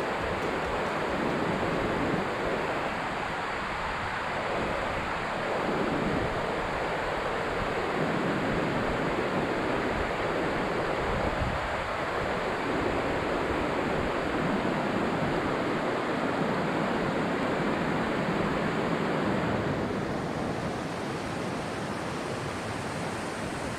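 Steady rush of flowing creek water, with some uneven low rumble of wind on the microphone.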